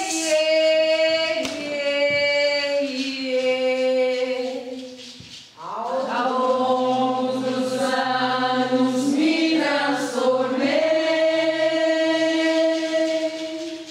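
A small group of voices singing unaccompanied in long held notes that step slowly in pitch, in two phrases: the first fades away about five seconds in, and the second begins about a second later.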